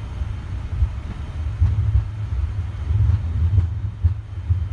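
Low, steady rumble inside the flight deck of a Boeing 787-9 on its takeoff roll, the engines spooled up and the wheels running along the runway, with a few faint knocks.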